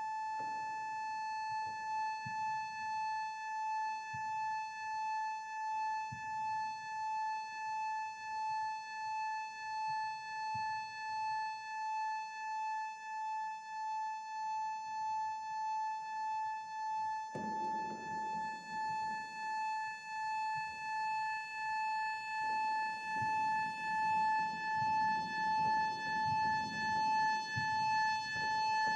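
A ca. 100-year-old pump organ (harmonium) holding a single high drone note, its loudness pulsing evenly about one and a half times a second. Lower notes join about two-thirds of the way in and thicken near the end, all in a large reverberant hall.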